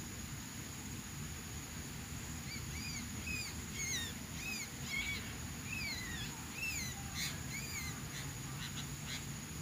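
Small songbird calling: a string of short, up-and-down whistled notes starting a couple of seconds in and running for about five seconds. They sound over a steady high-pitched insect drone and a low background rumble.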